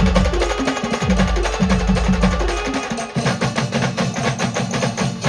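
Brass band music with drums and percussion. About three seconds in, the melody and low bass give way to a fast, dense drum rhythm.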